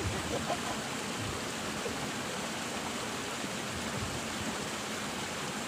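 Steady hiss of water flowing along a small irrigation ditch, with no distinct events.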